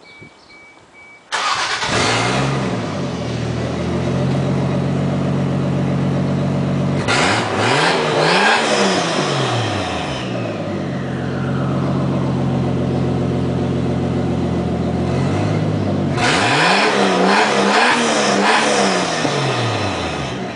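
A 1987 Toyota Supra Turbo's turbocharged straight-six (7M-GTE) fires up about a second in, heard at the tailpipe of its new aftermarket exhaust. It settles into a steady idle, is revved in a few quick blips, idles again, then is revved in several more blips near the end.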